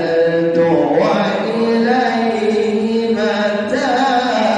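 A solo male voice reciting the Quran in a melodic chanted style, drawing out long held notes that slide between pitches.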